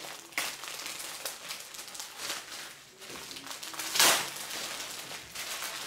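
Clear plastic foil packaging crinkling and rustling in irregular bursts as hands pull a magazine bag open, with the loudest crackle about four seconds in.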